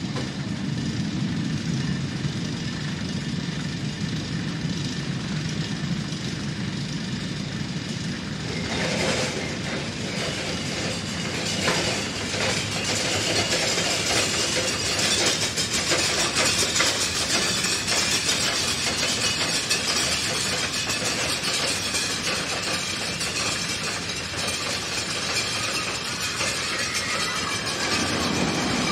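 Roller coaster train running on its track. A low rumble gives way, about nine seconds in, to a louder rushing clatter that keeps going.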